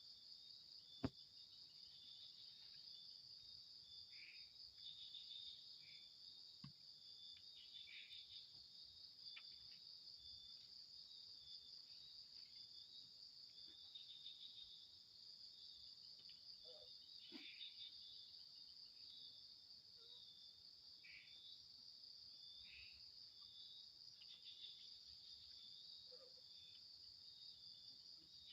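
Night insect chorus of crickets or katydids: a steady, high continuous trill, with scattered short chirps from other insects and a single sharp click about a second in.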